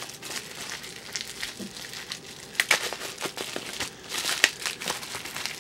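Plastic bubble wrap being pulled open and handled by hand, crinkling with irregular crackles that grow busier in the second half.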